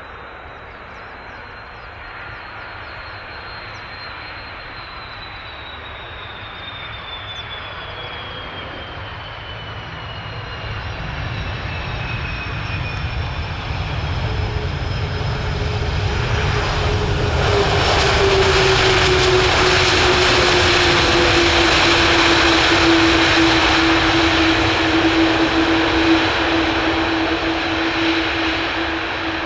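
Airbus A330-200 jet landing. Its engines whine in a falling pitch on approach, then after touchdown a loud engine roar builds up about two-thirds of the way in and holds, typical of reverse thrust, easing off near the end.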